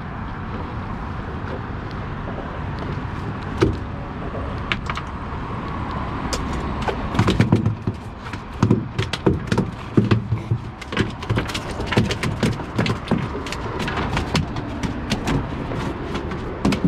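A freshly landed sheepshead flopping on a fiberglass boat deck: a long irregular run of sharp knocks and thumps starting about seven seconds in, over a steady low rumble.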